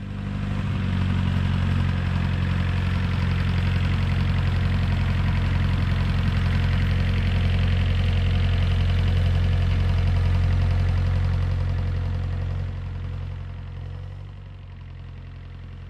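Small tractor's diesel engine running steadily at a constant speed, growing fainter about three-quarters of the way through.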